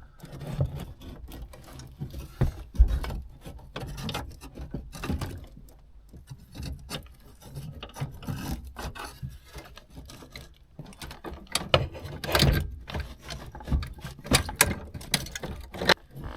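Irregular metal clunks, knocks and rattles of a steel brake and clutch pedal assembly being worked and jostled into position up under a truck's dashboard, busiest near the end.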